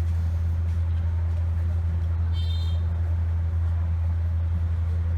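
A steady low hum that holds an even level throughout, with a brief high chirp about two and a half seconds in.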